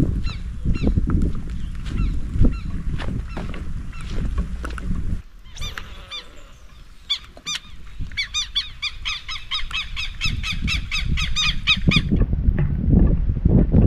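A bird calling over and over, several calls a second, densest in the second half. Under it, wind rumbles on the microphone; the rumble drops out about five seconds in and comes back near the end.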